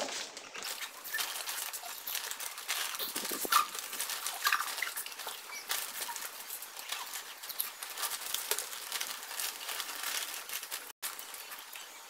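Foil-lined plastic snack packets crinkling and rustling as hands rummage in them, with crunchy chips being eaten; a dense, irregular crackle.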